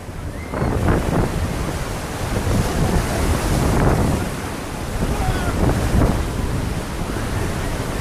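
Sea waves breaking on a beach, with strong wind buffeting the microphone in gusts.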